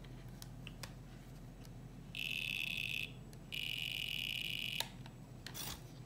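Piezo buzzer serving as the RC car's horn, sounding two steady high-pitched beeps, the first about a second long and the second a little longer after a short gap.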